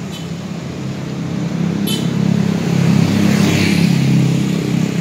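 A motor vehicle engine running with a steady low hum that grows louder about two seconds in, then eases slightly.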